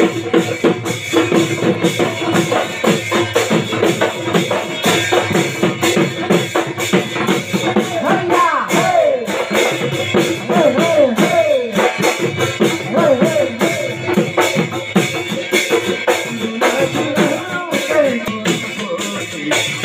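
Live folk dance music: hand drums played in a fast, steady beat, with a wavering melody over them through the middle.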